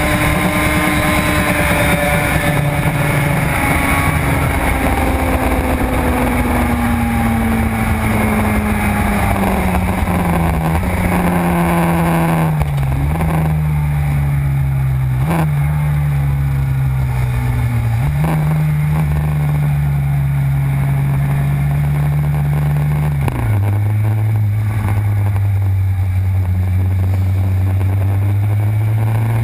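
Suzuki RG500 two-stroke square-four engine heard from on board the bike, its note falling steadily over the first dozen seconds as the bike slows. It then runs at a steady low note with two brief dips, drops lower again about two-thirds of the way through, and slowly rises toward the end.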